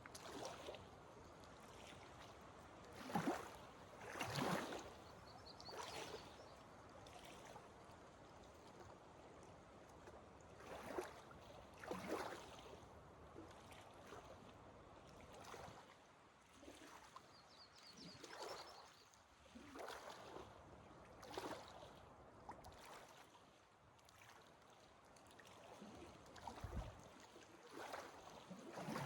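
A hiker's footsteps on a dirt forest trail, one step about every second or so, with short pauses between runs of steps, over a faint steady background hiss.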